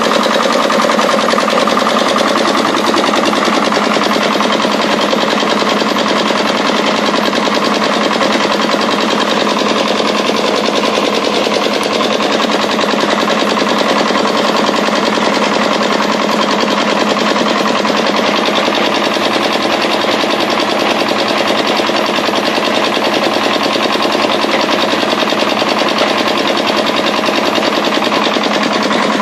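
Groundwater well-drilling machine running steadily, with a fast, even mechanical rattle.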